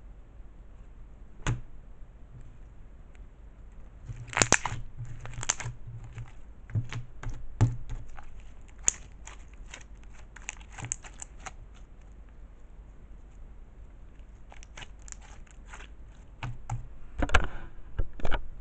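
Slime being poked and squished by hand, giving irregular pops and crackles, with a denser run of louder clicks near the end.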